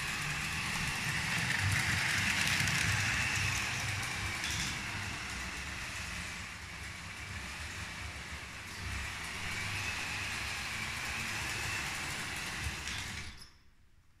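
Lego 12V train running on plastic track: a steady electric motor whine with a low rattle of wheels over the rails. It cuts off suddenly about thirteen seconds in as the train stops.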